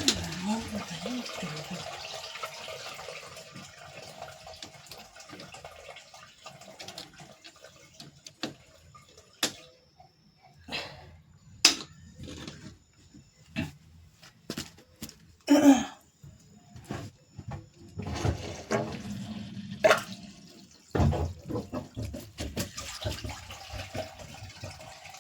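Water running and splashing through a sink or washing-area drain, with scattered knocks and clatter throughout.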